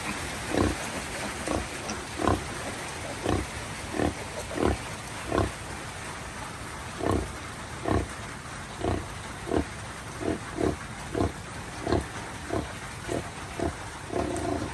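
Sow grunting in a steady rhythm, short low grunts about every three-quarters of a second with a brief pause midway: the rhythmic nursing grunts of a sow feeding her piglets. Under them is a steady hiss of heavy rain.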